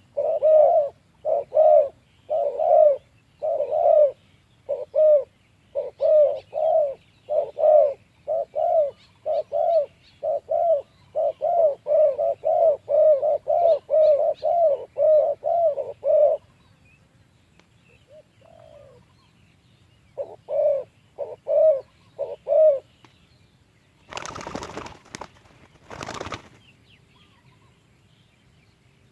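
Spotted doves cooing in a long rapid series, about two coos a second, breaking off after about sixteen seconds and resuming briefly in a short run later. Near the end come two short bursts of noise.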